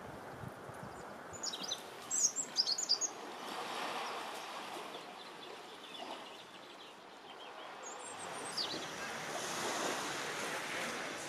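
Small sea waves washing in at the shore, the wash swelling twice, with a small bird's quick high chirps early on and again near the end.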